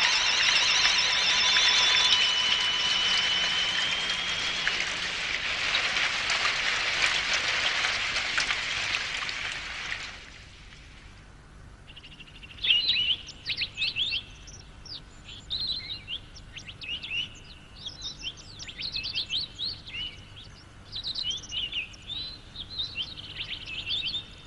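A loud, steady hiss for about ten seconds, with a few held tones over it at first. After a short lull, small birds chirp in quick, repeated bursts, as a cartoon forest ambience sound effect.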